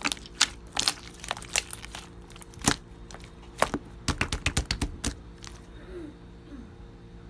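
Pink slime being squeezed and pressed by hand, its trapped air bubbles popping in sharp clicks, with a quick run of clicks about four to five seconds in before it goes still.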